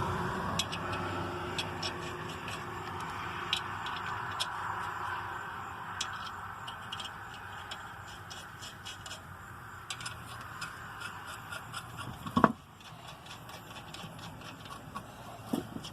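Wheel and tire being fitted back onto the hub and the lug nuts threaded on by hand: scattered light metallic clicks and scrapes, with one sharp knock about twelve seconds in.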